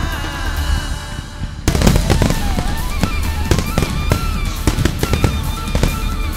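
Aerial firework shells bursting in quick succession, a rapid string of sharp bangs and cracks over music with held melodic notes. The bursts thin out briefly, then a dense barrage breaks in suddenly under two seconds in.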